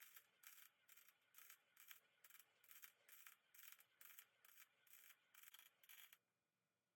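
Steady back-and-forth rubbing or scraping strokes, about two a second, that stop abruptly about six seconds in.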